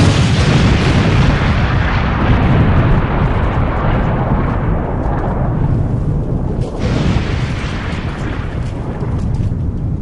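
Loud continuous rushing roar that starts abruptly, heaviest in the low end. Its hiss thins out after a few seconds, and it changes suddenly about seven seconds in.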